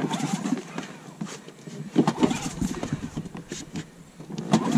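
Tohatsu 15 hp outboard motor being pull-started: a few rasping yanks of the recoil starter cord, with the engine catching near the end.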